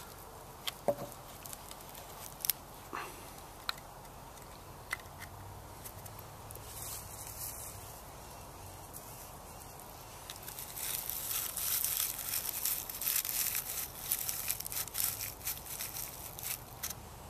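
Papery bark rolled into a torch, rustling and crackling as it is handled: a few sharp clicks over the first few seconds, then a denser crinkling from about ten seconds in that stops shortly before the end.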